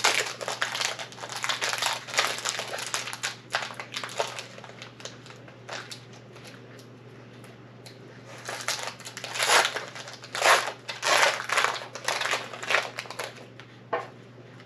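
Foil booster-pack wrapper of a trading card pack crinkling as it is handled and torn open. There are two spells of rustling, one in the first few seconds and a louder one from about halfway until near the end, then a single click.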